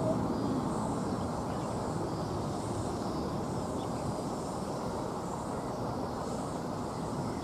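Steady rumble of distant aircraft engines across an airport, an even noise with no distinct events.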